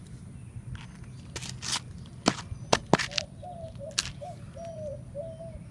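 Sharp knocks and smacks, about six spread over the first four seconds, as rubber slides are struck to break off dried, brittle mud.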